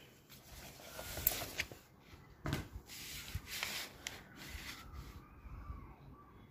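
Paper being handled and rubbed, and a ballpoint pen scratching on a ruled notebook page, in irregular soft strokes with a few light knocks.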